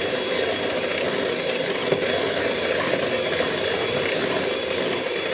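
Electric hand mixer running steadily, its beaters whipping a cream mixture in a bowl until it stiffens.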